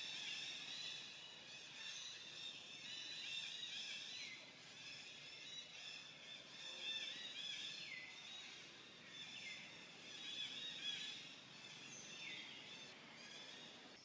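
Faint outdoor ambience: a steady, high-pitched chorus of wildlife calls, with a few separate calls falling in pitch every couple of seconds.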